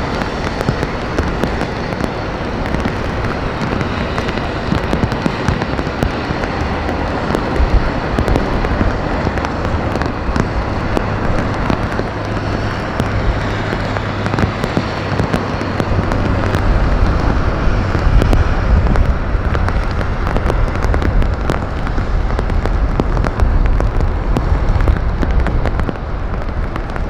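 Heavy rain hissing steadily, with close drops crackling on or near the microphone. A deep rumble grows stronger about halfway through.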